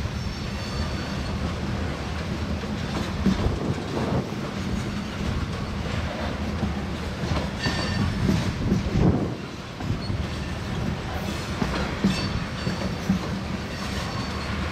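Norfolk Southern freight train rolling past, its wheels clacking over rail joints, with high-pitched wheel squeal now and then over a steady rumble.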